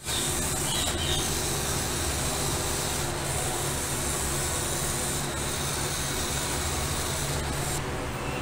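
Small electric drive motor and gears of a toy remote-control tractor running with a steady whirring, grinding noise.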